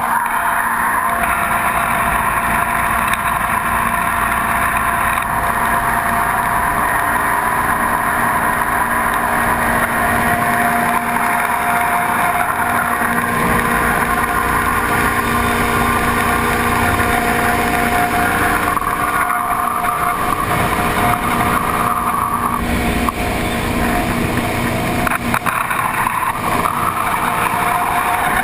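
Tunnel-hull jet boat's V8 engine running steadily at speed, with a brief dip in level about 23 seconds in.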